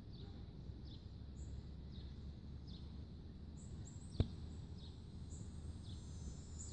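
Faint outdoor background: a bird chirping in short, high, falling notes repeated about once or twice a second over a low steady rumble, with a single sharp click about four seconds in.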